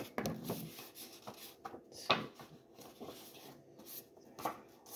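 A deck of paper index cards being shuffled and handled by hand: irregular soft rubbing swishes and light taps of cards sliding against each other, with one sharper snap about two seconds in.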